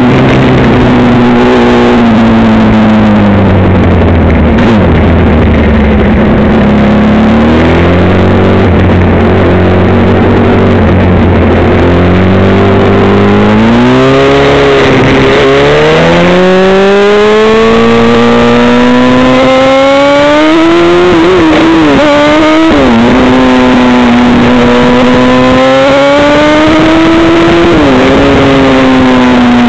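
Motorcycle engine heard from on board. It slows down over the first few seconds and holds steady at low revs. About halfway through it accelerates, rising in pitch with two quick drops where it shifts up a gear, then cruises and eases off near the end.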